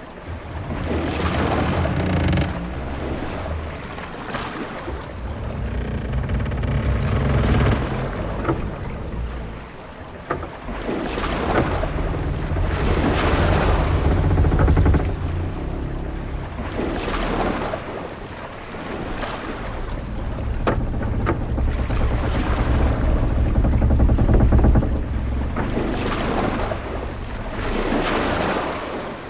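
Sea ambience aboard a sailing ship: waves wash against the hull in swells that rise and fall every few seconds over a low rumble of wind and water, with a few brief creaks.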